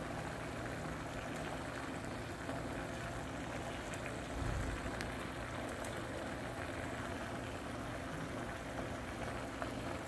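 Pork adobo simmering in a covered frying pan on an electric cooker: a steady bubbling hiss with a low hum underneath.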